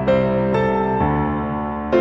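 Background music with a keyboard melody, a new note sounding about every half second.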